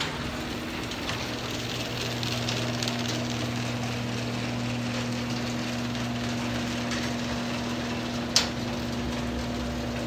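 Genie garage door opener motor running, raising the door with a steady hum over even mechanical noise. It keeps going up with a safety sensor blocked, because the sensors only stop the door when it is closing. A single sharp click comes about eight seconds in.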